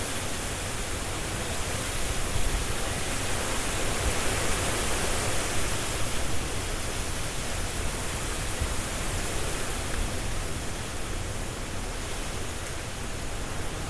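Strong wind rushing through trees with leaves rustling: a continuous hissing rush that swells and eases slightly, over a low rumble.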